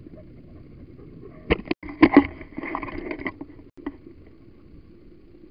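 Steady rumble of wind and movement on a pole-mounted action camera. From about one and a half to three seconds in there is a burst of loud knocks and rattles from handling as the camera is swung round.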